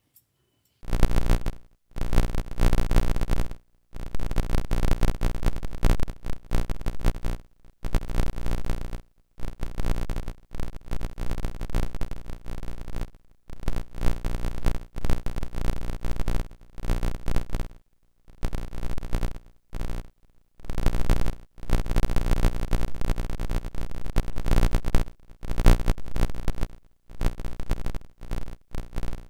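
Background music, starting about a second in, in phrases broken by short gaps.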